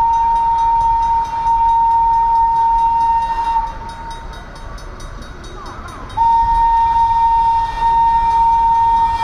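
Train sounding its horn in two long, steady single-note blasts. The first is already sounding and stops about three and a half seconds in; the second starts about six seconds in and is still going at the end.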